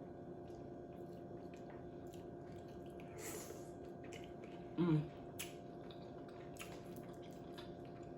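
Faint wet chewing and smacking of a person eating a saucy seafood boil, with scattered small clicks and a short hum just before five seconds in.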